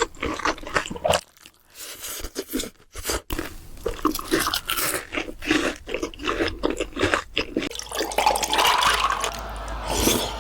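A person eating crunchy food: a run of short, sharp crunching bites and chewing.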